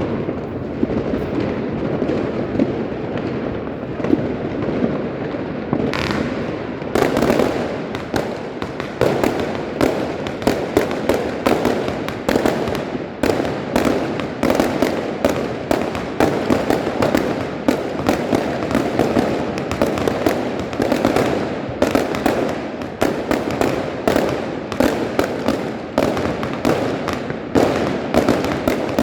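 Fireworks going off in dense succession: a steady rumble of many overlapping bangs. About seven seconds in, rapid sharp cracks and pops join it and run on close together.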